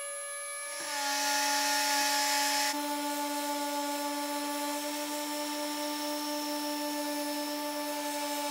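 Makita cordless random orbital sander running on a pine board, a steady motor whine with a sanding hiss. It gets louder and shifts in pitch about a second in, then settles a little quieter from about three seconds in.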